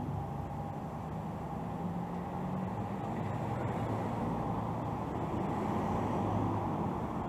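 Street traffic: car engines and tyres running steadily on the road, slowly growing louder as cars approach the intersection.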